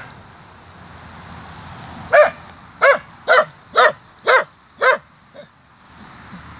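Dog barking: one bark right at the start, then a run of sharp barks about half a second apart from about two seconds in, the last one faint.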